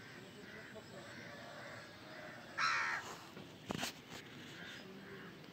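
A single short, harsh, crow-like caw about halfway through, followed a moment later by a few sharp clicks.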